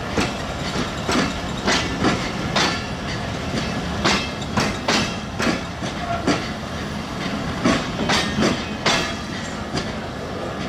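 Bangladesh Railway broad-gauge passenger coaches rolling past close by, their wheels clacking over the rail joints in a run of sharp clicks about every half second to a second, over a steady rumble.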